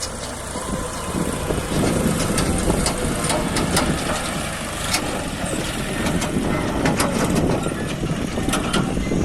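John Deere 5050D tractor's 50 hp diesel engine running steadily under load, with scattered sharp clicks and rattles over it.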